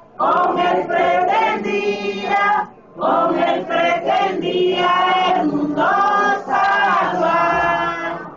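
A group of voices, mostly women's, singing a hymn together in unison, in two phrases with a short break about three seconds in.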